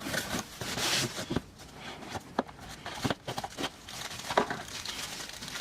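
Packaging being handled and opened by hand: irregular rustling with sharp clicks and knocks.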